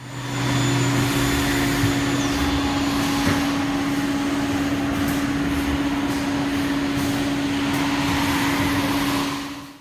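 Haas Super Mini Mill 2 CNC vertical machining center running: a steady mid-pitched hum over a hiss of machine noise, with a lower hum that drops out about two and a half seconds in.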